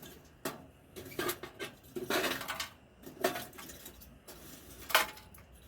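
Hard objects clattering and knocking as they are handled and set down: a handful of separate knocks, the loudest about five seconds in.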